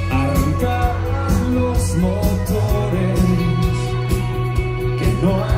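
Rock band playing live, heard from the audience: electric guitar, bass and drums with a steady beat, and a voice singing over them.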